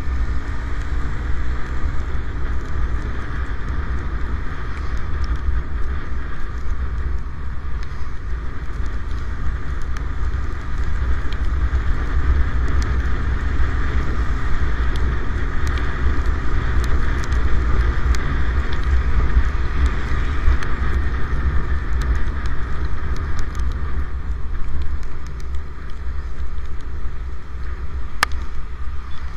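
Wind buffeting the microphone of a camera on a moving motorcycle ridden in light rain, a steady low rumble, with tyres hissing on the wet road. A few faint ticks sound here and there.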